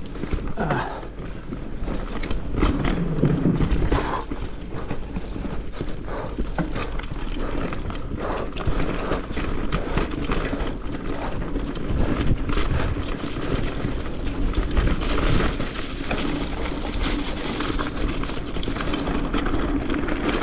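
Marin Rift Zone 3 full-suspension mountain bike descending a dirt forest trail at speed: tyres running over dirt and roots, with the chain and frame rattling and knocking at every bump, heard from the bike-mounted action camera. Near the end it rolls out onto gravel.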